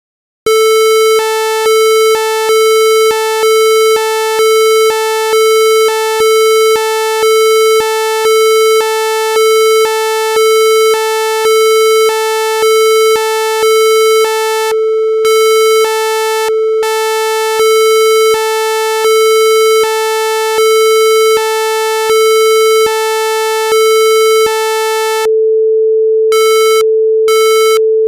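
Synthesized emergency-alert tone: a steady buzzy electronic tone held throughout, with a higher tone beeping on and off about once a second over it. The beeping stops a few seconds before the end, leaving the steady tone alone.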